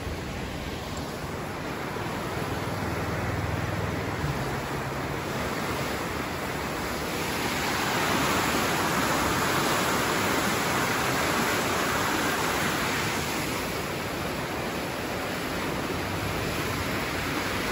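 Steady rushing of a swollen, muddy river in flood, its turbulent current churning into standing waves. It grows louder about seven seconds in and eases again a few seconds later.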